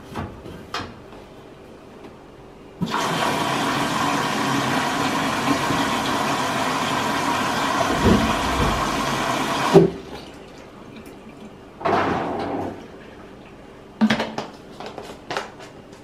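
Arçelik front-loading washing machine's water inlet filling: a steady rush of water into the detergent drawer cuts in abruptly about three seconds in and stops abruptly some seven seconds later, as the quick-wash cycle takes on water. A short rush follows, then a few clicks and knocks near the end.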